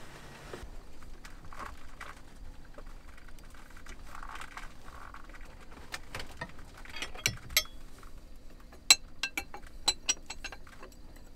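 Metal wrenches clinking and scraping against each other and against an engine's zinc anode plug as it is worked loose. Scattered light clicks, then a run of sharp, ringing metal clinks in the second half.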